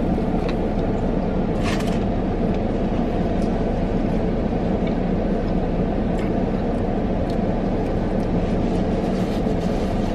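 Steady low rumble and hiss of a parked car running, heard inside the cabin, with a few faint clicks of chewing on top.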